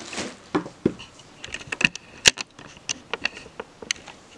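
Close-up handling sounds of crocheting with cotton yarn and a metal crochet hook: light rustling and a quick, irregular run of small sharp clicks as the stitches are worked, the loudest a little past two seconds in.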